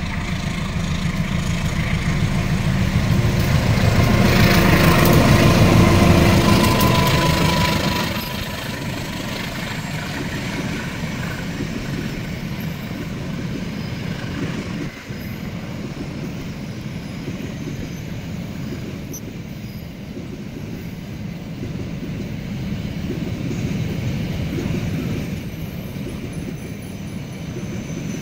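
A pair of diesel locomotives heading an empty coal train pass close by, their engine noise building to a peak about four to seven seconds in. A long string of empty coal gondola wagons then rolls past with a steady noise of wheels on the rails.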